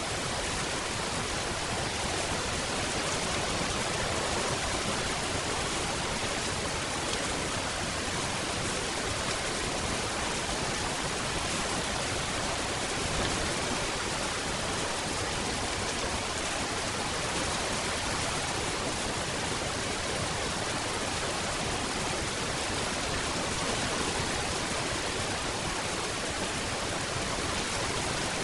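Steady rain falling: an even, unbroken hiss with no separate drops or thunder standing out.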